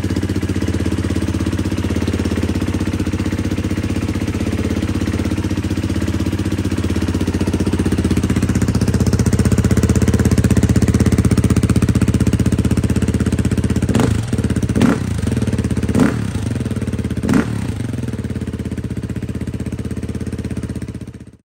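Beta 500 RR-S single-cylinder four-stroke dirt bike engine idling through its stock exhaust and factory silencer, with four quick throttle blips about two-thirds of the way in.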